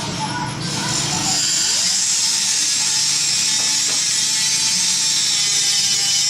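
A power tool running steadily, its pitch rising about two seconds in as it spins up.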